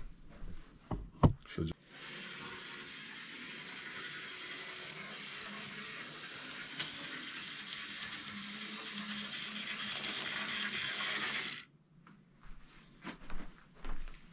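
Model GG1 electric locomotive running on the track: a steady whirring hiss of its motor and wheels that starts about two seconds in, after a couple of clicks, and cuts off suddenly near the end.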